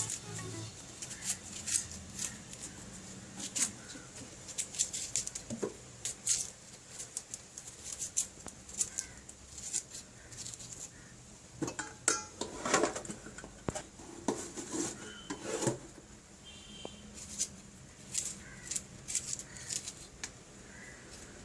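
Irregular clinks and knocks of kitchen utensils against pots and dishes, with a busier cluster of clatter about halfway through.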